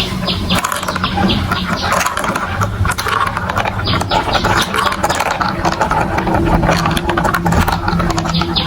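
Marbles rattling and clicking down a plastic building-block marble run, with quick runs of ticks about four seconds in and near the end, over a steady hum like a small toy motor.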